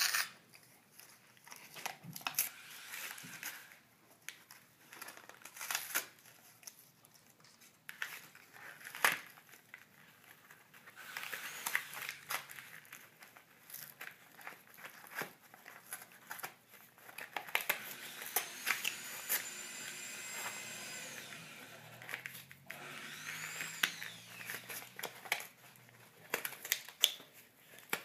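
A dog chewing and ripping apart corrugated cardboard: irregular crunching, crackling and tearing, loud and quiet spells coming and going.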